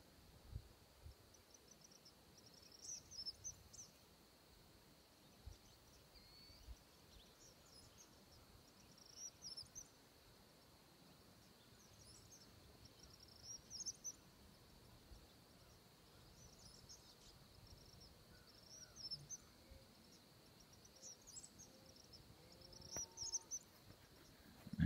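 Faint dawn ambience: a steady high insect drone, with a songbird repeating short, high chirpy phrases every few seconds, and a few faint low bumps.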